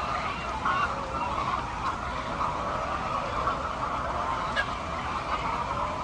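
A flock of chickens clucking and calling together, many overlapping calls in a steady chatter.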